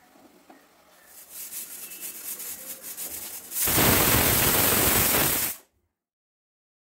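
Stovetop pressure cooker whistling: steam starts sputtering out under the weighted valve about a second in and grows louder, then bursts into a loud rush of steam for about two seconds before cutting off suddenly. It is the cooker's first whistle, the sign that it has come up to full pressure.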